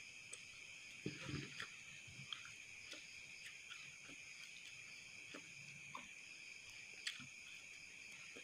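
Faint, steady high chirring of night insects, with a few soft clicks and taps scattered through it, the loudest about a second in and again near the end.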